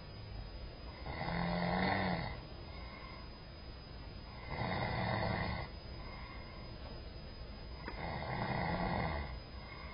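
A person snoring in sleep: three snores, each lasting a little over a second, coming about every three and a half seconds in a steady breathing rhythm.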